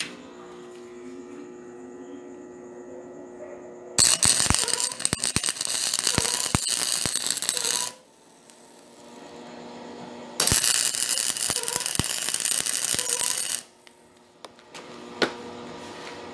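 Electric arc welding: two tack welds joining a 3/8" threaded rod's nut to a square steel tube, each a crackling, hissing arc lasting three to four seconds with sharp spatter pops, the second starting a couple of seconds after the first ends. A steady hum runs before and between the welds.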